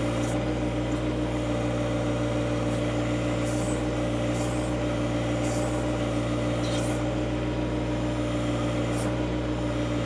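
John Deere 1025R compact tractor's three-cylinder diesel running steadily at high throttle, about 2,500 RPM, while it powers the backhoe digging at tree roots; on this stock tractor the backhoe lacks the power to break through. A few short faint hisses come and go over the engine.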